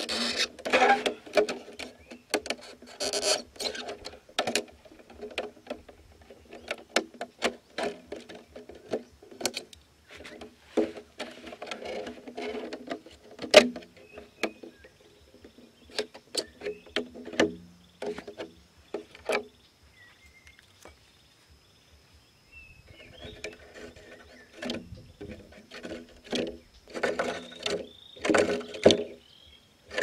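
A knife cutting and scraping through a thin clear plastic jar: crackling plastic with many sharp clicks and taps, easing off briefly about two-thirds of the way in.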